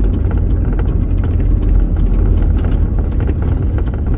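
Inside a car in a thunderstorm: a heavy steady low rumble of wind and road noise, with a fast irregular patter of sharp ticks over it, like rain striking the car.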